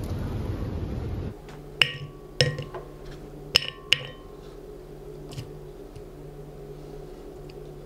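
After about a second of steady rushing noise that cuts off, cinnamon sticks and star anise are dropped into an empty glass pitcher: four sharp clinks against the glass, each with a short ring. A faint soft tap follows as grated ginger goes in, over a low room hum.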